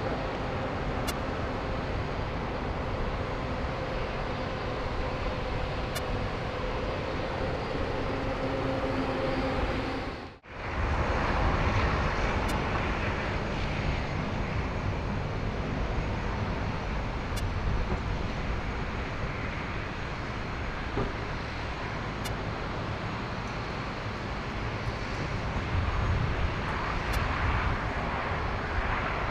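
Airliner engines running at an airport, a steady engine noise that drops out briefly about ten seconds in where one clip cuts to the next. Faint high ticks come about every five seconds: electromagnetic interference on the microphone from a nearby LED billboard changing its picture.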